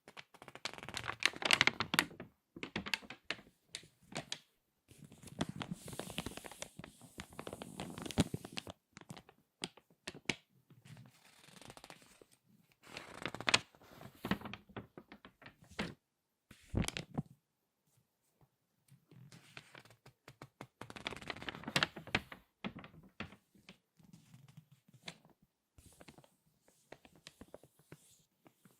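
Glossy magazine pages being turned and squeezed, with crinkling and crackling in several bursts, each a few seconds long, and sharp snaps between them.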